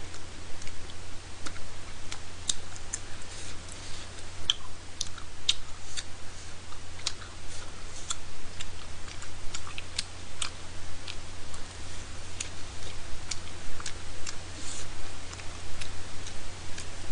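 Close mouth sounds of someone chewing spicy rice cakes (tteokbokki): irregular wet clicks and smacks, over a steady low hum.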